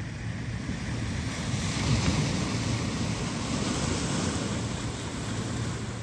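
Mediterranean sea surf washing steadily onto a rocky shore, with a light low wind rumble on the microphone; the wash swells a little about two seconds in.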